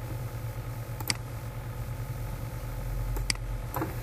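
Steady low background hum with three short isolated clicks at the computer: one about a second in and two near the end.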